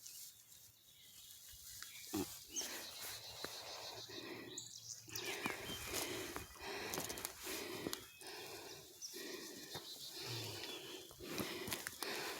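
A person breathing hard in a steady rhythm of breaths while walking uphill, with footsteps and scuffs between them.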